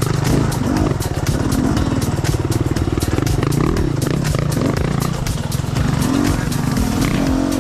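Dirt bike engine running on a trail ride, its pitch rising and falling again and again as the throttle is worked.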